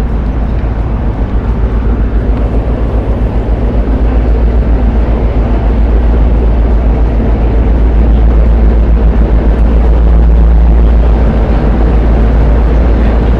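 Ferry engines heard from the vehicle deck: a loud, steady low rumble with a fast throb, growing a little louder towards the middle.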